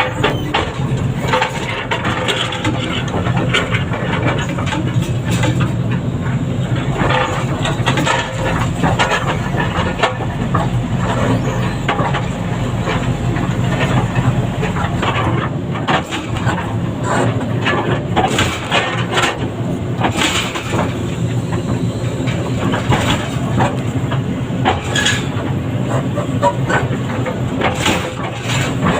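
Heavy diesel machinery running steadily under load, with frequent irregular knocks and clanks.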